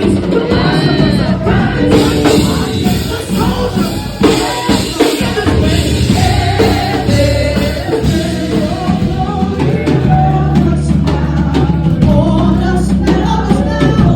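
Live church worship music: singing over a drum kit and held bass notes, loud and steady throughout.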